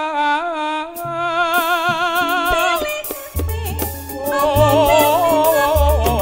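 Live Javanese campursari koplo band with a singer holding a long note with vibrato. Cymbals join about one and a half seconds in. A deep drum and bass beat starts about three seconds in, and a singing voice carries on over it.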